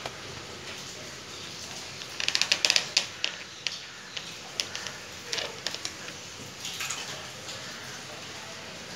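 A quick run of sharp clicks, then scattered clicks and knocks over the next few seconds, like small hardware being handled.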